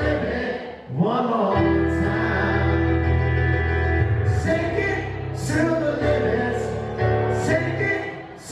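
Live grand piano playing with a man singing over it.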